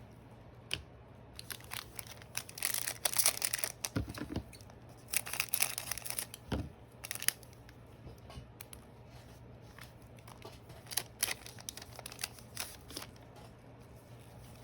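A trading card pack being torn open: the wrapper tears and crinkles in two bursts, followed by scattered light clicks and taps.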